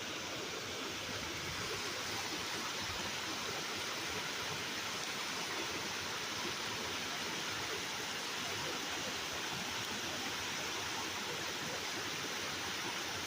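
Sable Falls, a waterfall, rushing with a steady, even noise.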